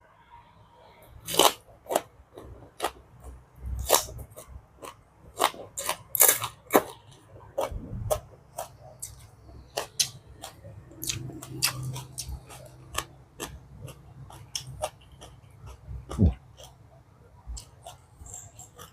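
Close-miked eating: irregular, crisp crunches and wet mouth clicks of chewing, about one or two a second.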